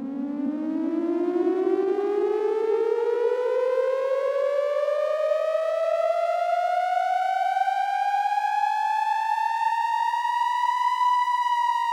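A siren winding slowly up in pitch from a low moan to a high wail over about ten seconds, then levelling off and just beginning to fall near the end.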